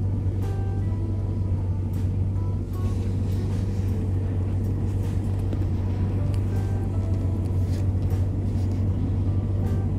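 A steady low vehicle rumble with background music playing over it, sparse melodic notes above the rumble.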